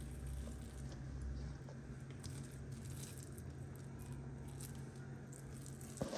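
Faint wet squishing and soft crackling of hands kneading and squeezing gram-flour (besan) dough in a steel bowl, over a steady low hum. A short knock comes near the end.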